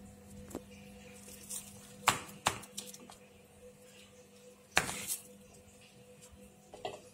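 Plastic film lining a cake tin crinkling in a few short, sharp bursts as it is handled, about four times, over a faint steady hum.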